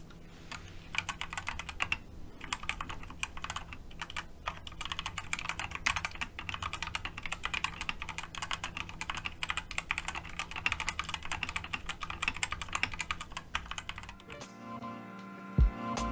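Fast typing on a KoiCo 61 mechanical keyboard with stock, unlubed Outemu Red linear switches: a dense run of key clacks. The typing stops about two seconds before the end, where music comes in.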